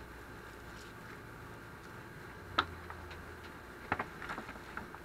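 Light clicks and crinkles of a disposable aluminium foil pan as gloved hands pull apart smoked pork in it: a single sharp tick about halfway through and a short cluster of ticks near the end, over a faint steady hum.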